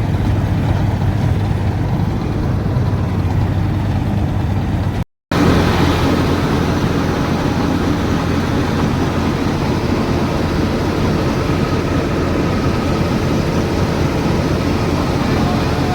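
Preet combine harvester running steadily with a heavy engine hum. The sound drops out for a moment about five seconds in, then comes back the same.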